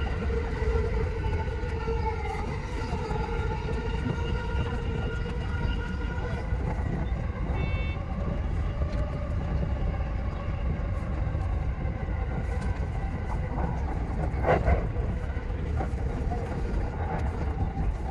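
E233 series electric train running, heard from inside the driver's cab: a steady deep rumble with several steady whining tones over it. There is a brief high beep about eight seconds in and a single sharp knock about fourteen seconds in.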